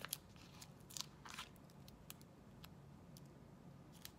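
Foam adhesive dimensionals being peeled off their backing sheet: a few faint, short crackles and ticks scattered through, the loudest about a second in.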